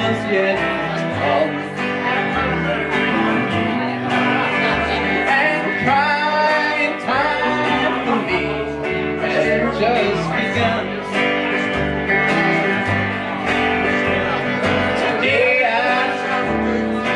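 Live country band playing an instrumental passage: guitar over an upright bass line.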